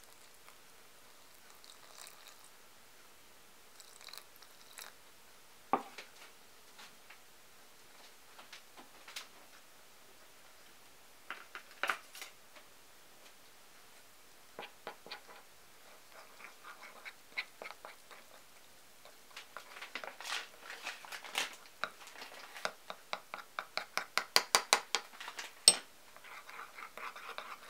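A spoon stirring tempura flour and water into batter in a ceramic bowl: scattered clicks and a few sharp knocks at first, then quick, steady clicking of the spoon against the bowl in the second half.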